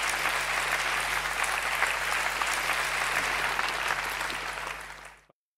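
Large audience applauding steadily, many hands clapping at once; the applause fades out near the end and drops to silence.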